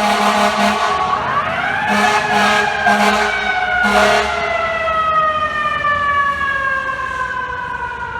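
Fire truck siren winding up about a second in and then slowly winding down, with bursts of short, repeated air horn blasts early on and again a couple of seconds in.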